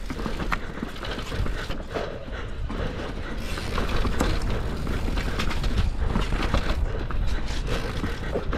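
Mountain bike riding fast down a rough dirt trail, recorded on the rider's camera: a constant rumble of wind buffeting the microphone, with frequent irregular clicks, knocks and rattles from the bike and tyres over the rough ground.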